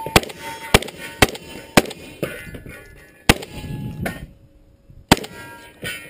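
Shotgun fired at steel targets: four quick shots about half a second apart, then two more spaced out, about three and five seconds in, with smaller knocks between them.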